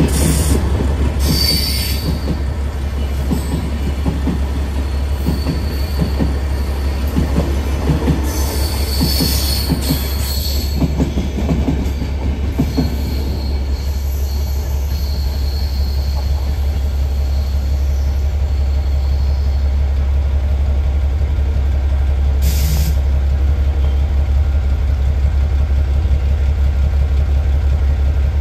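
Passenger coaches of a departing express train rolling past, wheels clattering over rail joints, with a high wheel squeal as they take the curve. The clatter thins out about halfway through as the last coach pulls away, and the squeal lingers a while longer.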